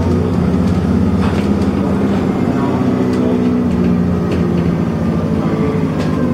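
ADL Enviro400 double-decker bus's diesel engine heard from inside the passenger saloon, working hard under acceleration, with sharp rattles and knocks from the bodywork every second or so.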